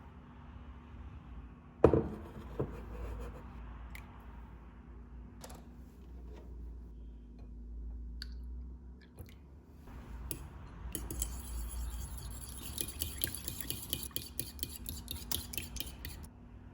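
Kitchenware being handled: a sharp knock of a dish or glass set down about two seconds in, a few scattered clinks, then several seconds of rapid metal-on-dish clinking and scraping near the end.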